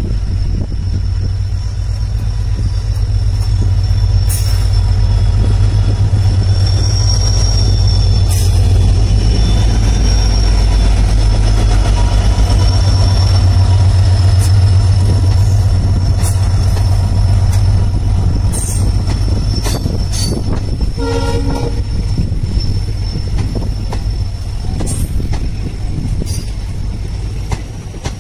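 Indian Railways diesel locomotive running past slowly at the head of a passenger train, its engine a heavy low rumble that builds as it nears and eases as the coaches follow. A steady high squeal from the wheels runs through the middle, with a short horn blast about three-quarters of the way through and the wheels clicking over the rail joints.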